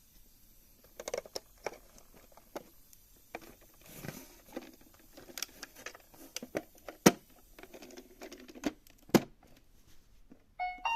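Small plastic toy pieces being handled and set down: a scatter of light clicks and taps, two of them sharper and louder. Near the end an electronic toy starts a short run of stepped beeping tones.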